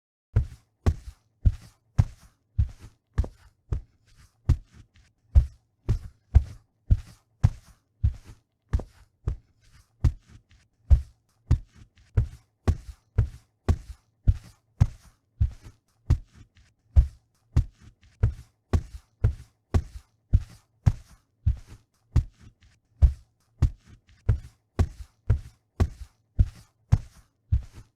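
Foley footsteps at a steady walking pace, about two steps a second, each step a dull thud with a light click on top.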